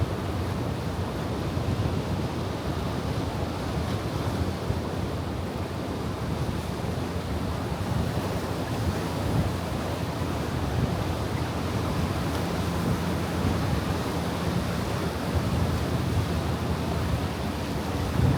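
Ocean surf washing steadily against the shore, with wind buffeting the microphone.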